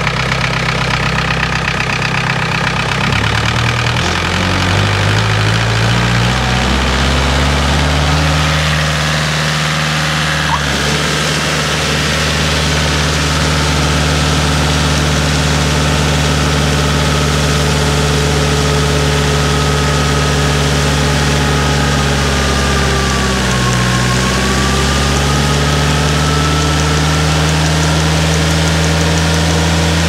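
Engine running at steady revs while barley is augered into a road-train trailer. Its pitch climbs over the first few seconds and holds, then sags briefly and recovers about two-thirds of the way through. A higher whine rises and falls with it.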